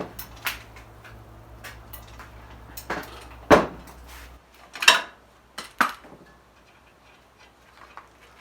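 Metal hand tools clinking and clanking against the brake caliper and its 17 mm bolts, about five sharp clanks with the loudest two a little past halfway. A low steady hum runs underneath and stops about four seconds in.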